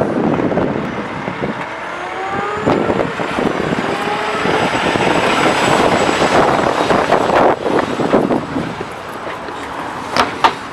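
Tractor-trailer livestock truck hauling pigs comes up close and passes, its engine and tyre noise building to a peak about six seconds in, then easing off. Two sharp knocks near the end.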